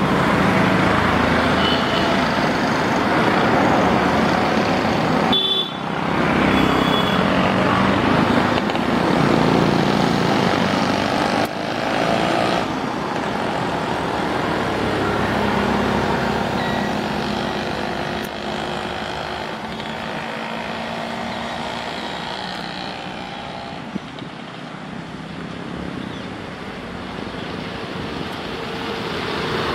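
Road traffic noise: vehicles running past with a continuous rumble, louder in the first twelve seconds or so and easing off after that.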